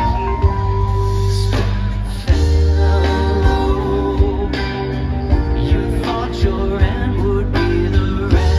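A five-piece rock band playing a song live: guitars, bass, keyboards and drums, with sustained notes over a strong bass line.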